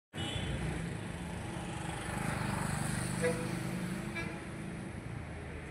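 Street traffic ambience: a steady engine hum of road vehicles, with faint voices in the background.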